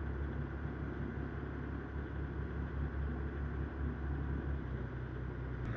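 Steady low rumble and hiss of wind and water on the microphone, recorded from a boat on choppy water; the rumble shifts slightly near the end.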